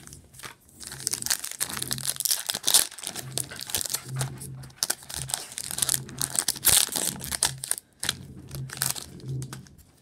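Foil wrapper of a 2020 Playoff football card pack crinkling and tearing as it is ripped open by hand, with a brief pause near the end.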